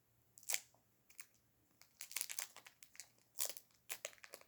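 Plastic packaging crinkling and rustling in irregular short crackles as it is handled and pulled open.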